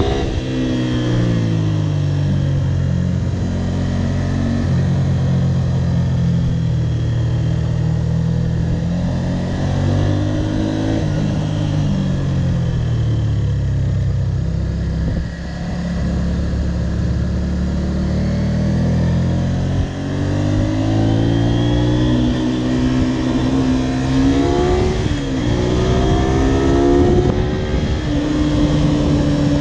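Honda VTR250's V-twin engine running under way: the engine note drops at the start, holds fairly steady through the middle with a brief rise and fall about ten seconds in, then climbs in steps from about twenty seconds in as the bike accelerates up through the gears.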